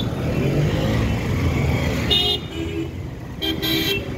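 Busy street traffic running steadily, with a vehicle horn tooting briefly about two seconds in and again twice in quick succession near the end.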